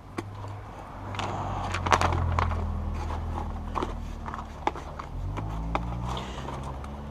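Sheets of Dynamat Extreme sound deadener being handled and worked onto a panel: crinkling and scattered sharp clicks and knocks, over a steady low hum that shifts in pitch about five seconds in.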